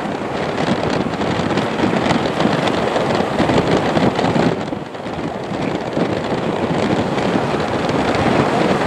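Lockheed Martin C-130 Hercules turboprop engines running as the aircraft taxis, a loud steady rush, mixed with wind buffeting the microphone.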